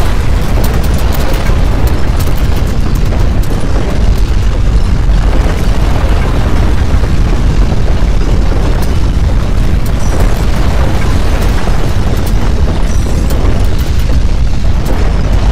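Simulated earthquake rumble: a loud, continuous deep rumbling with no breaks, as of strong ground shaking.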